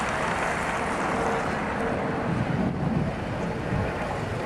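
Steady wind rushing over the microphone, mixed with road noise from an open convertible car.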